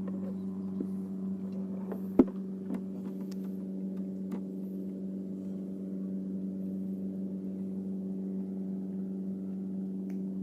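A steady, even engine hum with no change in speed. A sharp click about two seconds in, with a few fainter ticks.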